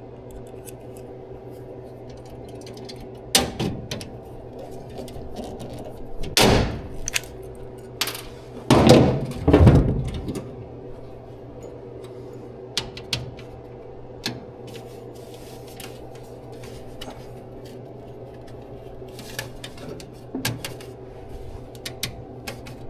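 Scattered knocks and clunks of parts being handled and fitted by hand, a few louder ones close together about nine seconds in, over a steady background hum.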